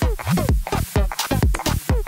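Electronic dance music with a steady, heavy beat.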